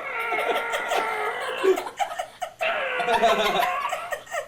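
Several people laughing and giggling in two long bouts, with a short break about two and a half seconds in.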